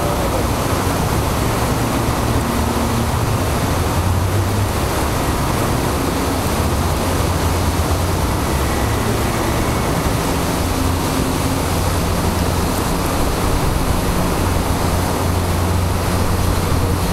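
Water pouring over a weir, a steady rush of white water, with a fire boat's engine humming low underneath as the boat works across the weir.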